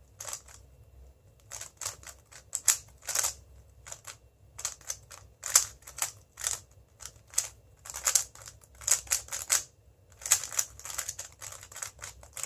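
Moyu WeiLong GTS2M 3x3 speedcube being turned fast in a timed solve: rapid runs of sharp plastic clicks and clacks from the layers snapping round, broken by short pauses about a second in and near ten seconds in.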